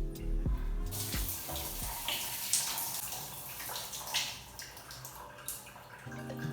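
Water running from a shower: a steady hiss with a few louder splashes. It comes in about a second in and fades near the end.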